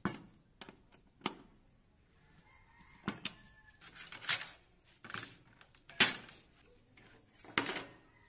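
Scattered sharp clicks, knocks and short metallic clatters from router parts being handled and fitted: the edge guide's steel rods and the metal base plate. The loudest knock comes about six seconds in, and the router's motor is not running.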